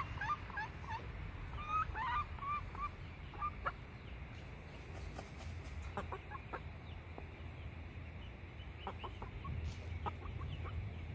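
Chickens clucking softly over the first few seconds, then scattered light pecks and scratches in dry straw and dirt as a hen dust-bathes, over a low steady background rumble.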